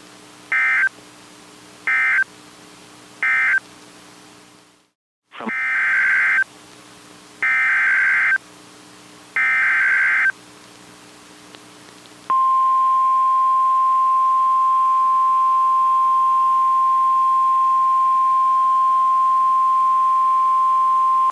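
NOAA Weather Radio Emergency Alert System data bursts: three short end-of-message bursts, a brief dropout, then three longer SAME header bursts that announce the next alert. These are followed by the steady 1050 Hz warning alarm tone, held for about nine seconds.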